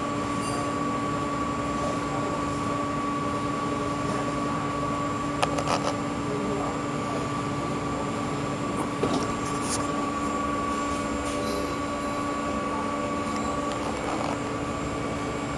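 Steady electric fan hum holding two even tones, with a few short clicks about five and a half and nine seconds in.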